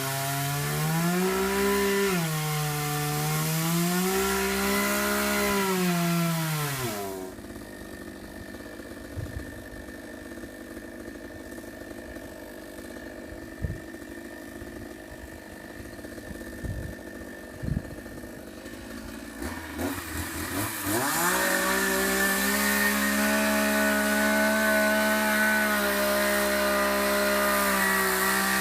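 Chainsaw engine revving up and down unevenly, then dropping away about seven seconds in, leaving a quieter background with a few knocks. It revs up again about twenty seconds in and holds steady at full throttle.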